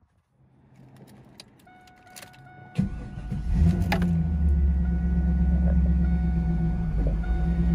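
Keys click and jingle in the ignition, then about three seconds in the Camaro's 5.7-litre LS1 V8 cranks and starts, flaring up briefly before settling into a steady idle.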